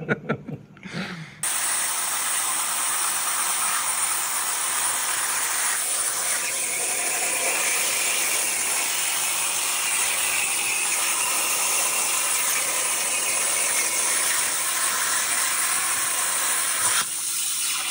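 CNC plasma cutter cutting sheet metal: a loud, steady hiss that starts suddenly about a second and a half in and stops near the end.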